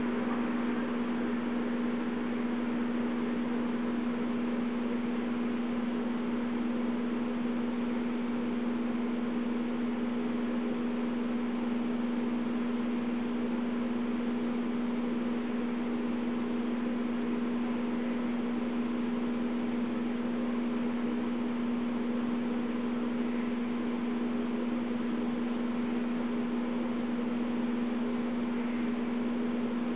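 Steady electrical hum over an even hiss, unchanging, with no sound from the animal.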